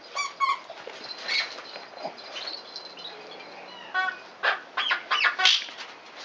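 Dogs' squeaky toys squeaking as they are chewed and tugged: scattered short, high squeals, coming thicker in a quick run over the last two seconds or so.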